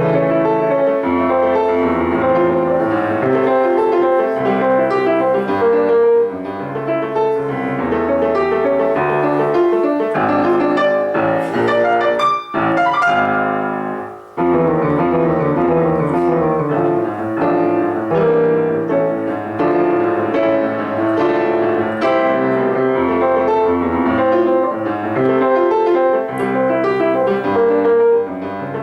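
Solo piano playing a classical piece, with dense, quickly changing notes and a brief break in the playing near the middle.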